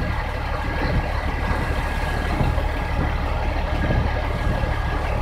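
Yard truck engine idling steadily, heard from inside the cab, with light rain falling on the cab and windshield.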